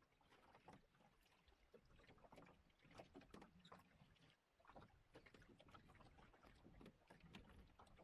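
Faint water lapping and splashing against the hull of a 17-foot lug-rigged yawl under sail, in many small irregular splashes.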